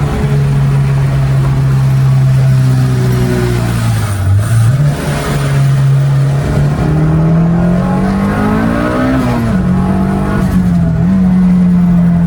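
Turbocharged B18C four-cylinder engine of a 1992 Honda Civic EG hatch running under way. It holds a steady note, dips in revs about four seconds in with a brief rush of hiss, climbs in revs for a few seconds, falls sharply just after nine seconds, and settles at a steady, higher note.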